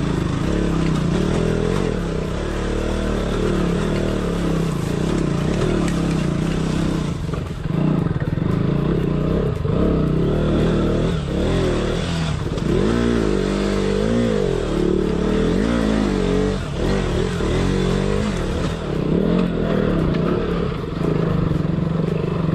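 Motorcycle engine running loud under load on an off-road trail, its revs rising and falling over and over, most markedly in the middle.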